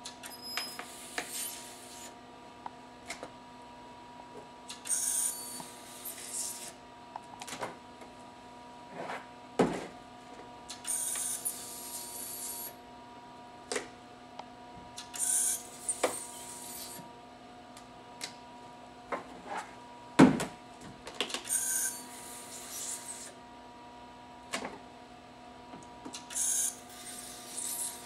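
SharperTek handheld ultrasonic plastic welder spot-welding corrugated plastic sheet, sounding in six short high-pitched bursts, each a second or two long and spaced about five seconds apart. Scattered knocks and taps come between the bursts as the welder and plastic are handled, over a steady faint hum.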